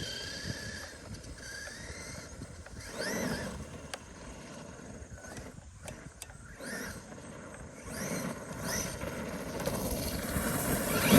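Traxxas E-Revo RC truck's electric motor and drivetrain whining, rising in pitch in several bursts of acceleration.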